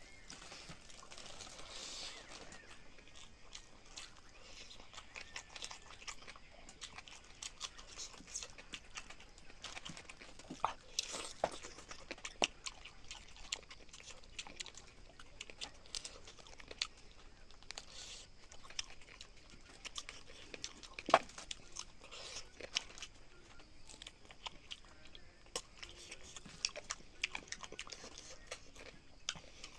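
A person chewing and biting into chicken tangdi kebab (chicken drumstick) and its skin, close to the mic: irregular wet mouth smacks and small crunches, with one sharper click about two-thirds of the way through.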